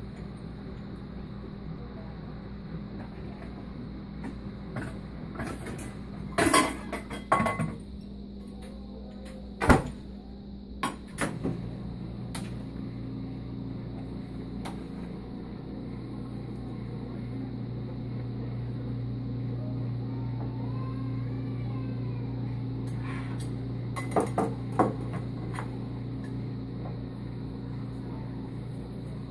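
Metal cookware clattering and clanking as a frying pan is handled at an electric stove, with one sharp knock about ten seconds in and more clatter near the end. A steady low hum comes in about twelve seconds in and keeps going.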